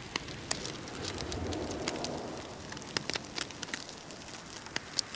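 Charcoal in a disposable foil-tray barbecue crackling with irregular sharp snaps, burning hot in the wind, with cod fillets sizzling on the grill. A low gust swells up about a second in and dies away.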